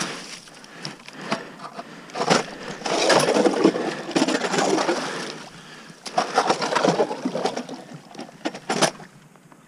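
DeWalt 20-volt cordless drill driving an ice auger, the blade grinding and scraping through lake ice and throwing up shavings. It runs in two spells, about two seconds in and again about six seconds in, each a few seconds long.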